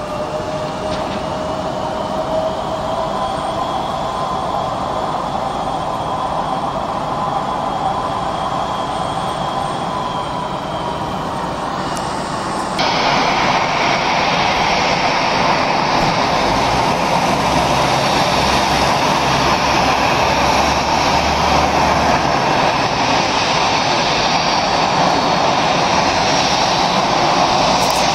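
Jet engines of a taxiing Embraer E170 running at low thrust: a steady rush with a whine that rises slightly in pitch. About 13 seconds in the sound cuts abruptly to the louder, denser rush of a taxiing easyJet Airbus A320-family jet's engines.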